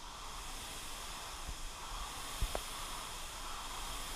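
Indoor rowing machines' air-braked flywheels whooshing steadily as two rowers pull hard. A light knock about two and a half seconds in.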